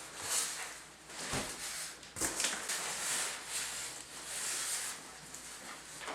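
Cardboard box and its packing being handled: rustling and scraping in uneven swells, with two dull knocks a little over a second in and about two seconds in.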